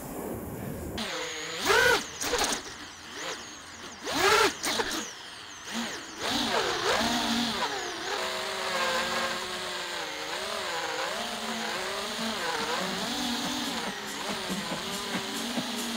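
Brushless motors and propellers of an Armatan Marmotte 6S FPV racing quadcopter, heard through its onboard camera. They give two sharp throttle punches that whine up and back down within the first five seconds, then a continuous whine that wavers in pitch as the quad takes off and flies.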